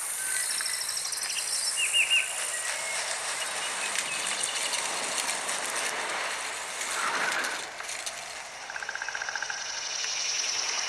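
Video soundtrack played through the ZTE Axon 7 phone's front stereo speakers: high chirps and short trills over a steady hiss, with a fast trill near the end.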